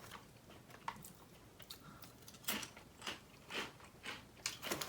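Someone chewing wavy potato chips: faint, irregular crunches with the mouth closed.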